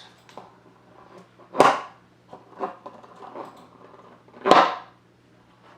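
A homemade cardboard vortex air cannon fired twice, about three seconds apart: each time its stretched balloon membrane is pulled back and let go, giving a sharp snap that dies away quickly. Small clicks and taps of handling come in between.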